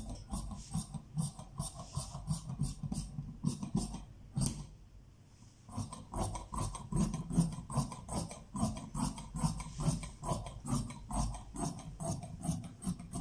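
Large steel tailor's shears snipping through cloth on a cutting table, a steady run of cuts at about three snips a second, with a short pause about five seconds in before the cutting goes on.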